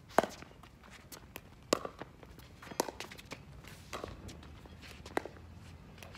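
Pickleball rally: paddles striking the hollow plastic ball with sharp pops about once a second, five in all, the first the loudest. Fainter taps and players' footsteps on the hard court fall between the hits.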